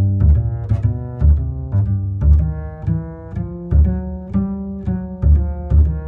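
Background music: a low melody moving note to note about twice a second over a steady ticking beat.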